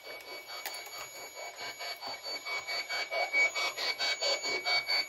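Handheld ghost-hunting spirit box sweeping through radio channels: a rapid, choppy pulsing of static and radio fragments, about five pulses a second, growing louder, with a faint steady high whine underneath.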